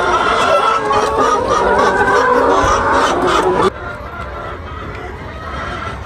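A crowded flock of brown laying hens clucking and calling over one another. The sound cuts off suddenly about three and a half seconds in, leaving a quieter background.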